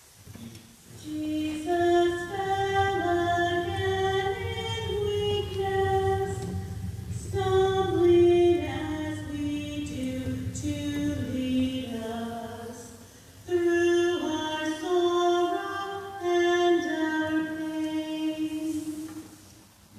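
A woman singing a slow hymn verse between the Stations of the Cross, in three phrases with brief breaths between them.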